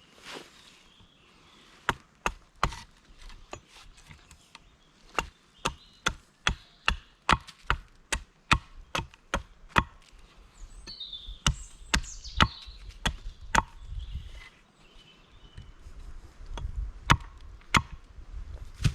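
Wood being chopped: a run of sharp strikes, about two a second through the middle, then more spaced out.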